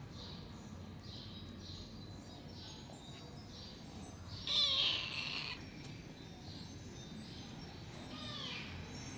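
Kitten meowing: one loud, short meow about halfway through and a fainter meow near the end.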